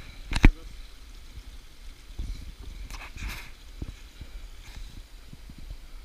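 Wind buffeting the camera's microphone in uneven low gusts, with one sharp handling knock about half a second in as the handheld camera is moved.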